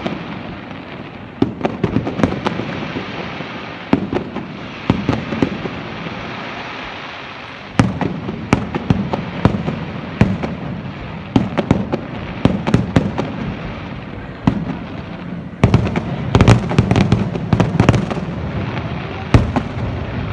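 Aerial firework shells bursting in a display: a string of sharp bangs over steady crackling, coming thickest in a rapid cluster about three-quarters of the way through.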